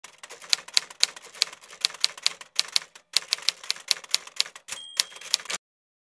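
Manual typewriter keys clacking in quick succession, about three to four strokes a second with brief pauses, then a single ring of the carriage bell near the end. The sound cuts off suddenly just after the bell.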